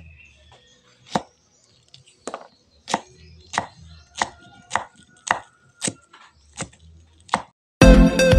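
Kitchen knife slicing okra pods on a wooden chopping board: about ten sharp knocks of the blade on the board, roughly one every 0.6 seconds. Loud electronic music cuts in suddenly near the end.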